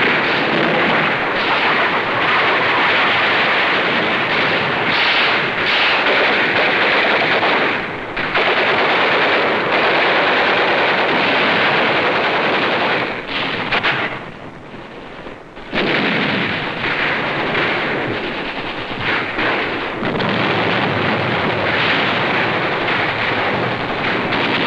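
Heavy, continuous rifle and machine-gun fire, a dense crackle of shots, on an old film soundtrack with a thin, band-limited sound. It eases off briefly about fourteen seconds in, then resumes.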